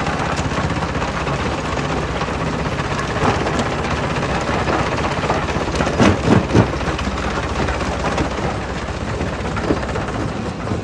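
Jaw crusher running, rock grinding and cracking between its jaws over a steady machine drone, with a few loud cracks about six seconds in.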